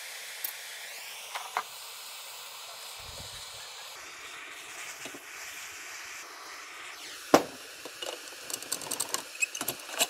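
Gas torch flame hissing steadily while it heats a soldered fitting to loosen it, with a sharp click a little past halfway and a run of small metallic clicks and taps near the end; the hiss cuts off suddenly.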